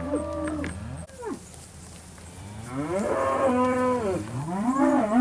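A pen of Angus-cross beef steers bawling: a call at the start, a long drawn-out moo in the middle and another loud one at the end. They are calling for feed, anxious to be fed.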